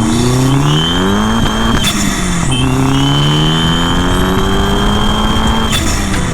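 Car engine accelerating hard through the gears: the revs climb, drop at a shift about two seconds in, climb again, and drop at another shift near the end.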